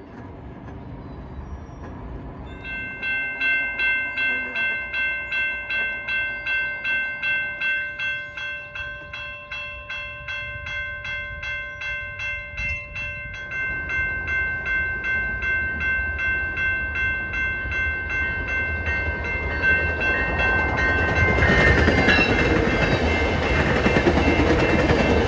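Railroad crossing warning bells ringing at about two strikes a second; one tone in the ringing stops about halfway through. From about twenty seconds in, the rumble of an approaching Metrolink push-pull commuter train grows louder and drowns the bells as the train passes over the crossing near the end.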